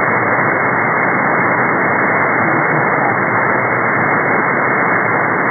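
Shortwave receiver tuned in upper sideband to a weak marine weather frequency, putting out a steady hiss of band static with no clear voice. The sound is narrow and thin, with nothing above about 2 kHz, the receiver's audio filter.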